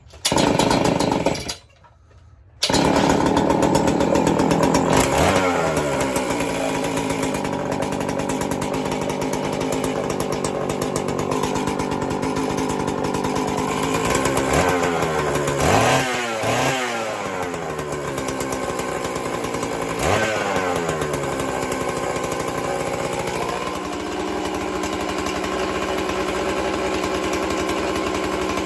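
Homelite 410 two-stroke chainsaw fires briefly and cuts out, then starts and runs. It is revved up and down several times, then settles to a lower steady idle near the end.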